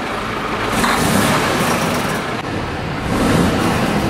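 Mercedes-Benz Actros 1853's 12.8-litre inline-six diesel engine idling steadily, freshly started.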